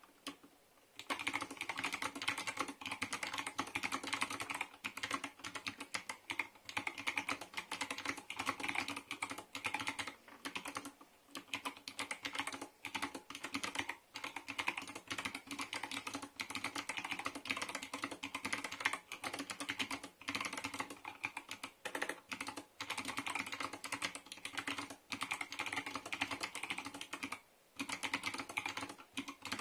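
Continuous fast typing on a mechanical keyboard with clicky Kailh Box Navy switches and PBT keycaps in a plastic 60% case: a dense stream of sharp key clicks that starts about a second in, broken only by a few brief pauses.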